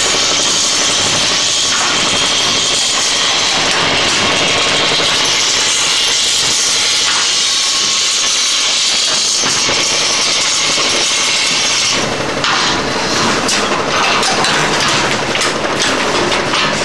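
Automatic thermocouple assembling machine running: a loud, steady mechanical din with a strong hiss. About twelve seconds in it turns to a quick, uneven rattling clatter.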